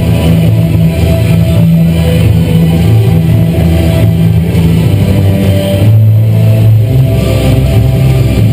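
Loud rock music with electric guitar, mixed with dirt bike engines running at the start line.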